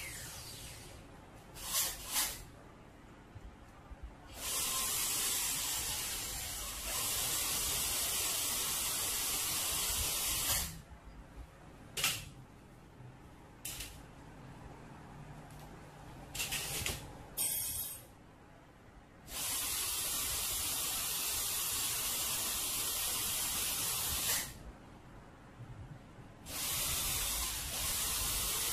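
Low-speed dental handpiece (drill) working in a root canal, running with a steady hiss in three runs of several seconds and a few short blips between them.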